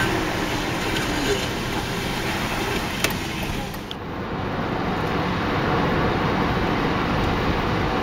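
Steady engine and tyre noise inside a moving car's cabin, with a single short click about three seconds in; the high hiss drops away about four seconds in.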